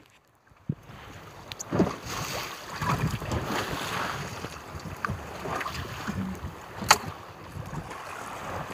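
Water sloshing and splashing in a fishing boat's live-bait well as a small dip net is scooped through it for a sardine, over wind on the microphone. A single sharp knock sounds about seven seconds in.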